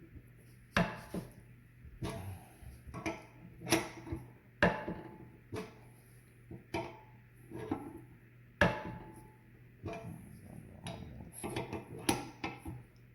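Irregular metal clinks and knocks of a wrench and steel pressing fixture as a leaf-spring bushing is drawn in by tightening a bolt through a makeshift ring, with no press.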